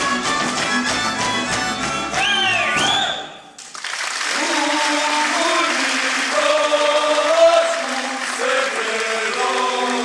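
Slovak folk band led by fiddles playing a lively dance tune, with a rising and falling glide near its end. The music stops about three seconds in, and a group of men start singing a folk song unaccompanied, over applause.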